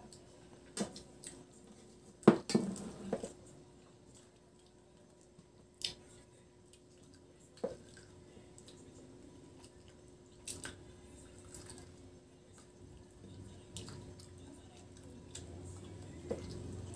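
Scattered clinks and taps of plates and drinking glasses on a table during a meal, with a sharper knock about two seconds in, over a faint steady hum.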